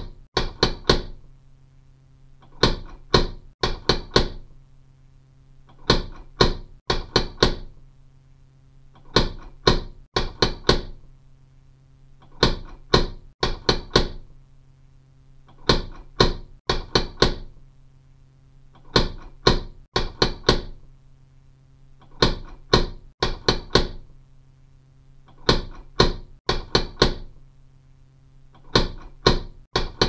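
A person knocking on a door, a burst of several quick raps about every three seconds, with a faint steady hum underneath.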